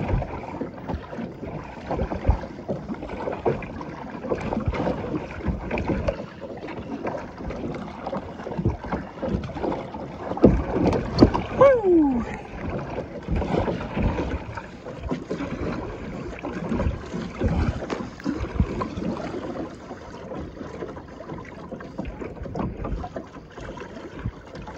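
Choppy lake water sloshing and slapping against a kayak, with irregular knocks and wind on the microphone. About halfway through, a short tone glides downward.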